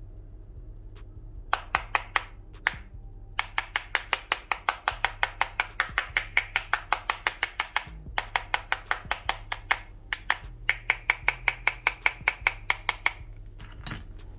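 Steel hex key worked against a Samsung Galaxy A32's glass screen in a scratch test, making rapid, ringing metallic clicks at about six a second. The clicks come in three long runs after a few scattered ones.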